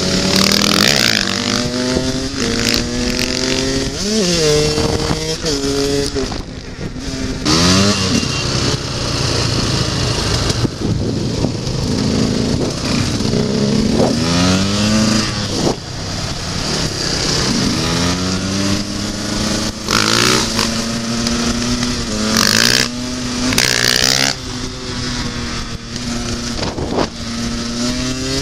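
Enduro motorcycle engines accelerating through the gears, the pitch climbing and then dropping back with each shift, then settling into a fairly steady cruise. A few short rushes of noise come near the end.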